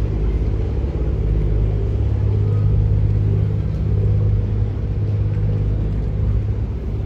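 Harbour ferry's engine running with a steady low drone, heard on board over a hiss of rushing water.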